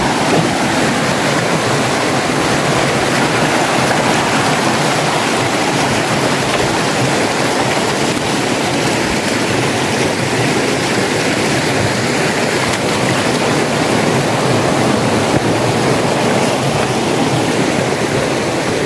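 A fast, shallow stream rushing over rocks: a steady, loud, unbroken wash of water noise.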